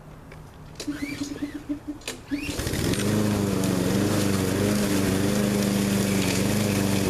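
Troy-Bilt TB360 walk-behind mower engine starting: it cranks and sputters for about a second and a half, catches about two and a half seconds in, and settles into a steady run.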